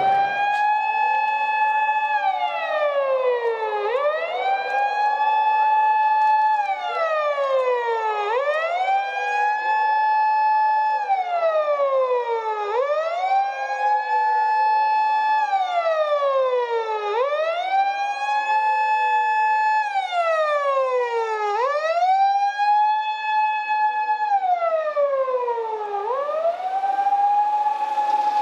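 Emergency vehicle siren wailing in slow cycles. Each one rises to a high pitch, holds for about two seconds and falls again, repeating about every four and a half seconds, with a second siren fainter and out of step.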